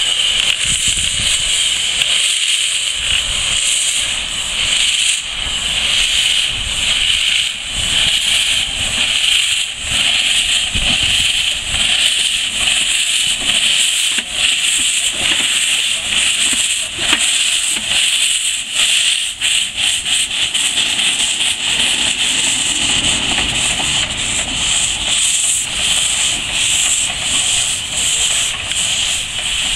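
Narrow-gauge steam tank locomotive hissing steam from its open cylinder drain cocks as it moves off slowly, a loud, steady hiss with uneven low thumps underneath.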